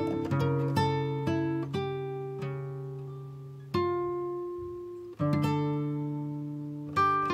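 Background music: acoustic guitar picked and strummed, its notes ringing out and fading between fresh strums.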